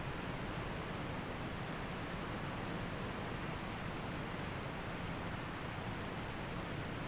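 Waterfall: falling water rushing steadily and evenly, with no changes or separate splashes.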